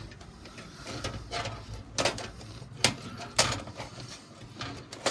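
Handling noise of a motherboard and its cables inside a PC case: a few sharp plastic-and-metal clicks and knocks, loudest about three seconds in, with rustling as a cable is pulled through.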